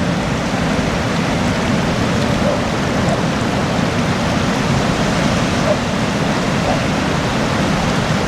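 Sea waves breaking on the beach: a steady, even rush of surf with no pause or change.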